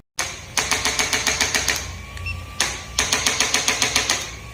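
Rapid, evenly spaced mechanical tapping at about eight taps a second, in two runs with a pause of about a second between them.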